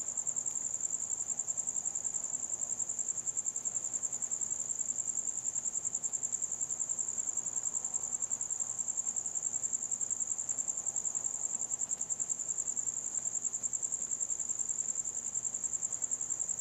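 Crickets chirping in a steady, rapidly pulsing high trill that never stops.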